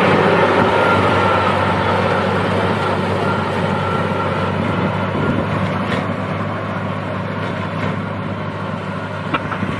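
A 480 tractor's diesel engine running steadily as it drives a front-mounted reaper binder cutting wheat, fading slowly as it moves away.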